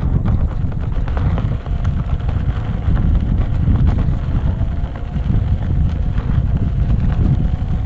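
Wind buffeting the microphone while riding along a dirt track, a loud low rumble throughout, with scattered clicks and rattles.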